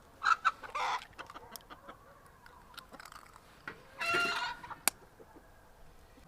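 Chickens clucking in short calls, with one longer call about four seconds in, among a few sharp clicks.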